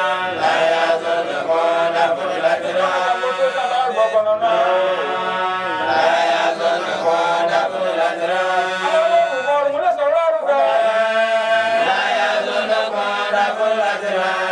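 A voice chanting in long, melodic phrases, with short breaks about four seconds in and about ten seconds in.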